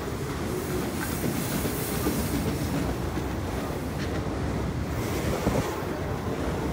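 Freight train of enclosed autorack cars rolling past: a steady, even rumble of steel wheels on the rails.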